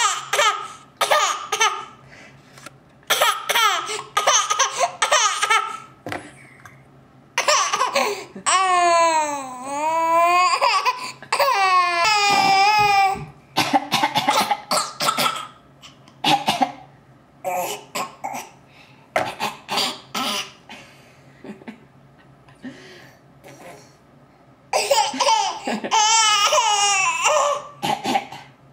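A person laughing in repeated fits of short breathy bursts, mixed with coughing. The laughter twice breaks into long, high-pitched squealing stretches whose pitch wavers up and down: about a third of the way in, and again near the end.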